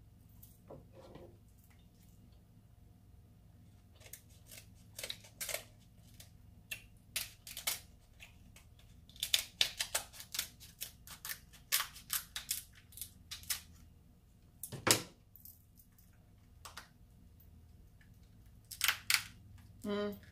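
King crab leg shell being cracked and snapped apart by hand: a run of sharp cracks and crackles, the loudest crack about fifteen seconds in.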